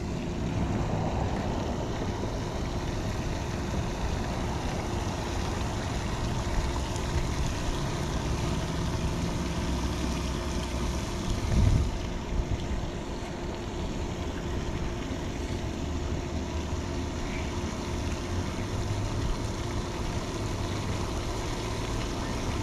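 Steady outdoor noise of wind on the microphone and the spray of the pond's fountain, with a faint steady hum. A brief low thump about halfway through.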